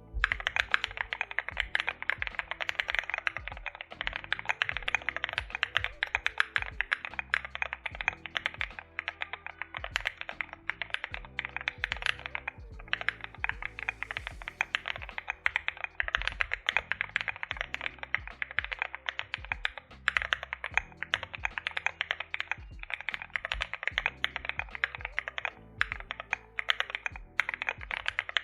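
Fast, continuous typing on an Akko MOD006 mechanical keyboard with an aluminium case, Akko CS Snow Blue Grey switches and SAL-profile keycaps: a dense run of key clacks, with brief pauses twice.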